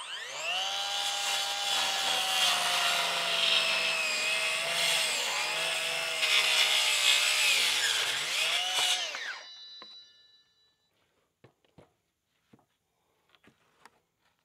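Handheld circular saw cutting through a 2x6 board. The motor whines up to speed and its pitch sags a little under load through a cut of about nine seconds, then winds down. A few light knocks follow as the board is handled.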